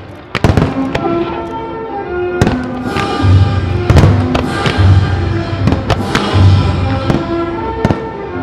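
Firework bursts from a pyromusical display: sharp bangs, several in quick succession about half a second in and more scattered through, over loud music with a repeating bass note.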